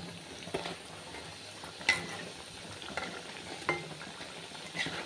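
Mung dal pitha deep-frying in hot oil in a kadai, with a steady sizzle. A metal slotted spoon clinks against the pan about five times as the pieces are turned.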